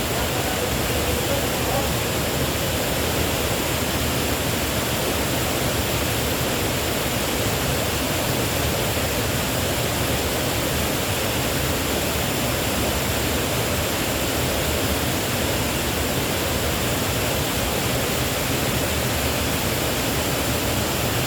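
Waterfall pouring steadily: an even rush of falling water that does not change in level.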